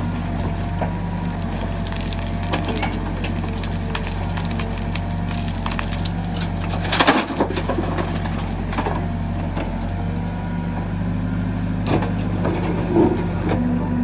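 Case 770 backhoe loader's diesel engine running steadily while the backhoe works. About seven seconds in there is a loud clatter of stones and soil tipped from the bucket into a tractor trolley, and near the end a few knocks as the bucket bites back into the stony ground.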